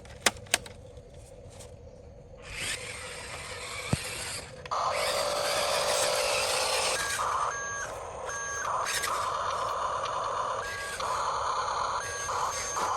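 Huina radio-controlled construction models running: electric motors and gears whirring, starting up a couple of seconds in and getting louder, with an electronic two-tone reversing beep repeating from about halfway through. A couple of sharp clicks come right at the start.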